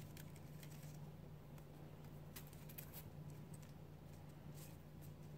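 Near silence: room tone with a steady low hum and a few faint, scattered light clicks.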